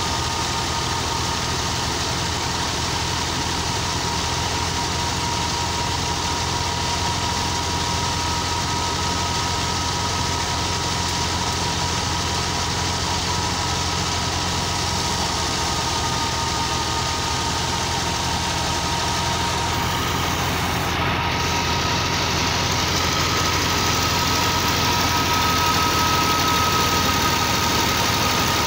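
New Holland Ghazi tractor's diesel engine running steadily, driving a thresher that is being fed with crop stalks, with a thin steady whine over the engine; it grows louder near the end.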